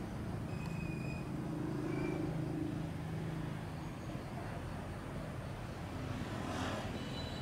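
Low, steady engine rumble, with a few faint short high tones over it and a brief hiss near the end.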